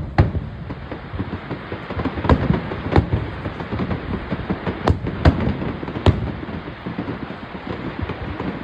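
Aerial fireworks bursting: about half a dozen sharp bangs at uneven intervals over a continuous rumble and crackle of further bursts.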